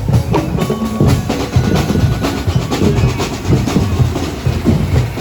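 Percussion band drumming a fast, driving beat on bass and snare drums, the drumming that accompanies Sinulog street dancing.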